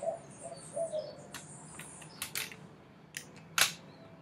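Handling noise from a speargun and its line: about half a dozen scattered sharp clicks and light knocks over a few seconds, the loudest one about three and a half seconds in.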